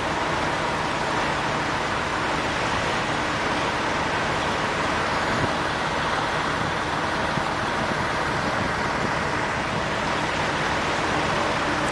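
Fire apparatus running steadily at a fire scene: a constant engine-and-pump drone with an even hiss over it.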